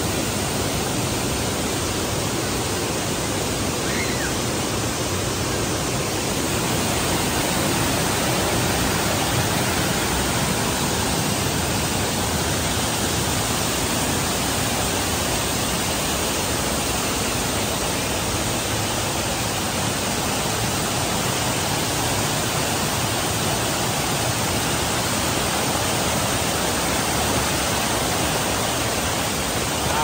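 Waterfall rushing steadily: an unbroken, even wash of falling water.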